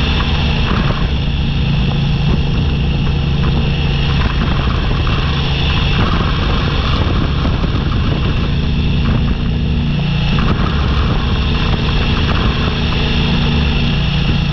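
Motorcycle engine running at a steady speed on a gravel road, with steady tyre and wind noise.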